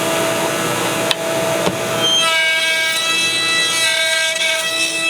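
Dovetail-cutting machine running, a set of cutters machining dovetails into wood all at once with a steady whine; a higher whine joins about two seconds in.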